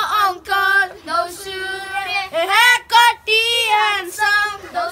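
A child singing in a high voice, in drawn-out notes that bend up and down, with short breaks between phrases.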